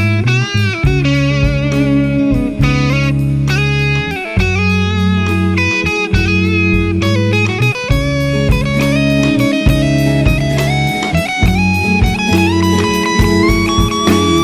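Rock song led by electric guitar over a held bass line and a steady drum beat, the guitar sliding up in pitch near the end.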